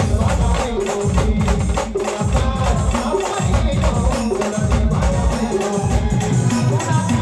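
Indian brass band playing an Ahirani folk tune: rapid, dense drumming with a melody line carried over it.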